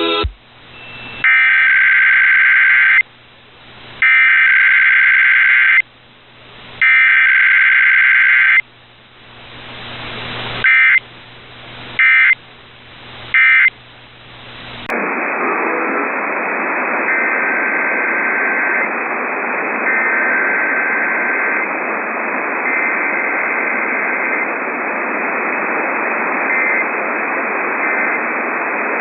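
Emergency Alert System SAME data bursts: three long bursts of digital warbling, the alert header, followed by three short end-of-message bursts, with hiss rising in the gaps. About halfway through, heavy radio static takes over, and another header and end-of-message sequence sound faintly through it.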